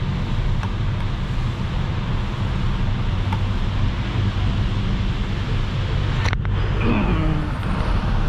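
Road traffic: a steady wash of passing vehicles with a low engine hum underneath. There is a very brief dropout about six seconds in.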